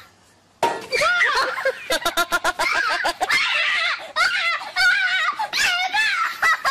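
Children squealing and shrieking in fright and excitement: a run of high-pitched squeals that rise and fall. It starts about half a second in and goes on with only short breaks.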